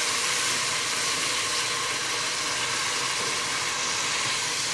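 Browned onions sizzling in hot oil in an aluminium pot, with a little water just added: a steady hiss.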